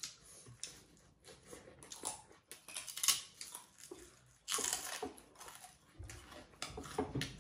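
Close-up eating sounds: irregular crunching bites and chewing of crisp raw vegetables such as white radish, loudest about three seconds in and again around four and a half seconds in.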